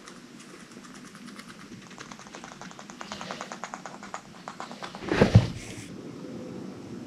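Guinea pig making a rapid run of small clicks, about eight to ten a second, growing louder toward the middle, then a single loud thump about five seconds in.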